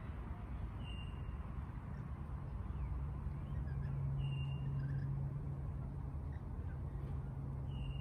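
A low steady hum, over which a bird gives a short high whistled note three times, about three seconds apart, with a few faint chirps.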